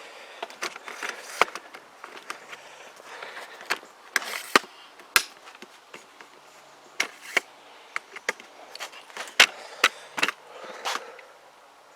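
Scattered sharp clicks and knocks of things being handled and set down, about a dozen spread irregularly, the loudest about four and a half, five and nine and a half seconds in.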